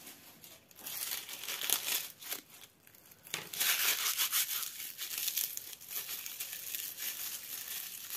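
Dry dead leaves being crushed and crumbled by hand, a crisp crackling rustle that comes in bouts, loudest from about three and a half seconds in.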